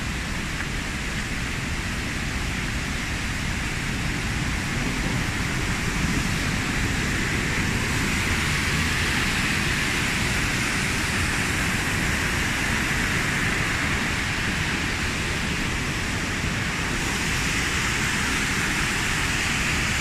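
Mountain stream cascading over boulders in a rocky gorge: a steady rush of water that swells a little about halfway through.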